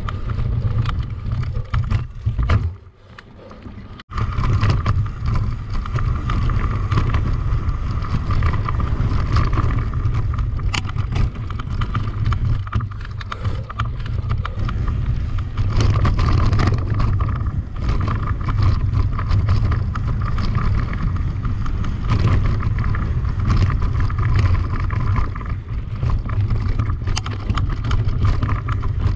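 A mountain bike being ridden at speed, with wind rushing over the camera microphone and the bike rattling and knocking over rough ground. The noise drops away briefly about three seconds in, then comes back with a sharp click.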